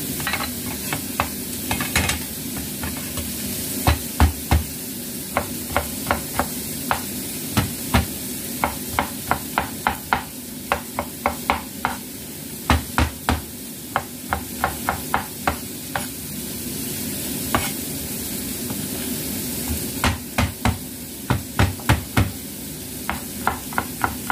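A cleaver chopping and crushing shallots and garlic on a cutting board, in quick runs of sharp knocks with a few pauses. Under it runs the steady sizzle of fish frying in oil.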